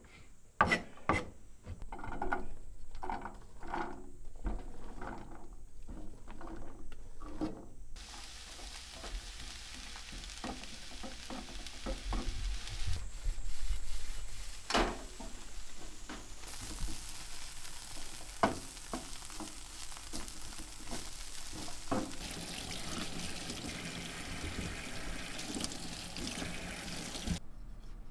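Kitchen knife chopping onion on a cutting board, then diced onion sizzling in a frying pan as it is stirred, with a few sharp knocks against the pan.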